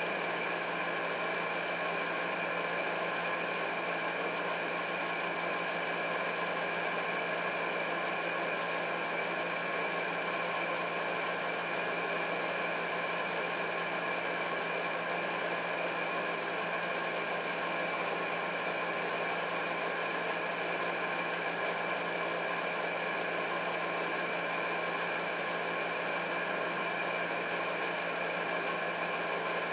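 Steady mechanical hum made of several held tones at an unchanging level.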